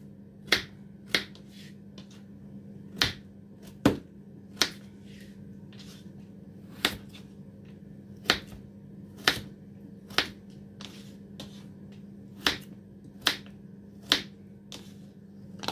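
Kitchen knife cutting through hard raw potato wedges on a cutting board: a sharp knock each time the blade goes through and hits the board, about thirteen at uneven intervals, over a steady low hum.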